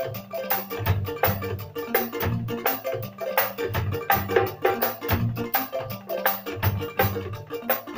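Live band music: an electric bass line and a keyboard played together over a steady beat.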